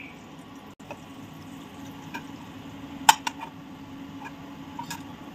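A slotted metal spoon clicking a few times against an aluminium kadai, the loudest click about three seconds in, as cashews and melon seeds roast in a little ghee over a low steady background.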